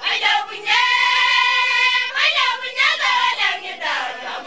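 A group of Samburu women singing together in high voices, holding one long note for over a second near the start before the phrase breaks up and moves on.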